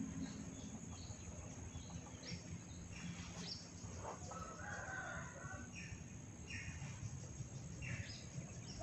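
A rooster crowing once, a little over four seconds in and lasting about a second, among short high chirps over a steady low background hum.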